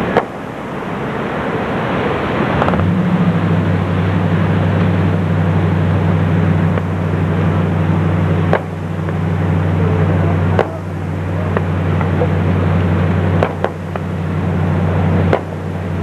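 Fireworks bursting as single sharp bangs, about five of them a couple of seconds apart, over a steady low droning hum that sets in about three seconds in.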